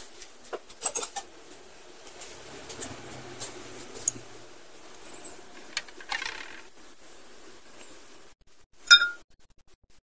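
Light taps, clinks and scrapes of ceramic plates being handled on a tabletop, with a louder knock about nine seconds in.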